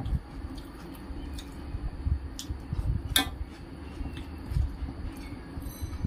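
Close-miked eating by hand: fingers squish and mix rice and dal on a steel plate. Scattered sharp clicks and taps against the metal stand out, the loudest about halfway through, over soft low thumps.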